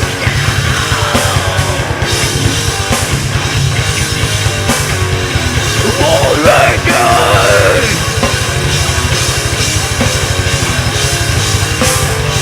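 A live heavy rock band playing loud, over fast, dense drumming, with a wavering pitched line rising above the band around the middle.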